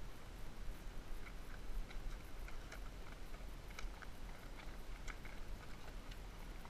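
Horse walking on a dirt road: light, irregular clicks of hooves and tack, about two or three a second, over a steady low rumble on the microphone.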